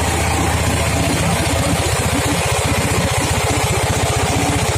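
Small boat engine running steadily at idle, with a rapid, even pulsing beat.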